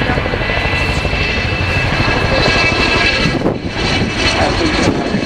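Boeing Chinook tandem-rotor helicopter flying overhead: the rapid chop of its rotor blades, with a steady high whine from its twin turboshaft engines.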